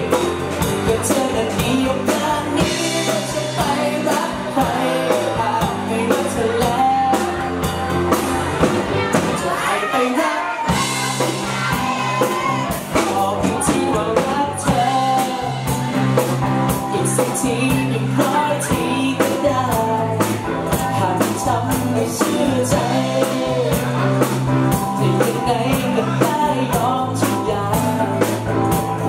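Live band performing a pop-rock song: a lead vocalist singing over electric guitar, bass and keyboard with a steady beat. The low end drops out briefly about ten seconds in, then the full band comes back.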